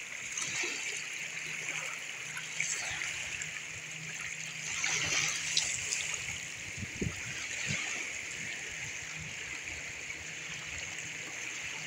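Shallow mountain torrent flowing over a gravel bed where it runs into the lake, a steady rush and trickle of water, with a few soft thumps about midway.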